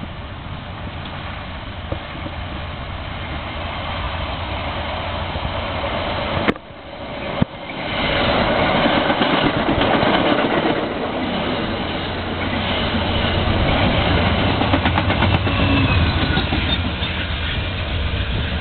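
A NJ Transit push-pull passenger train, with Comet V coaches and a P40 Genesis diesel shoving at the rear, passes at speed. Wheels on rails make a steady rush over a low engine rumble, louder from about a third of the way in. The sound briefly drops out just before it gets loud.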